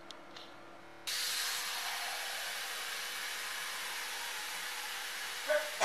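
Tap water running into a stainless steel pot: a steady splashing rush that starts suddenly about a second in. A short, louder sound comes near the end.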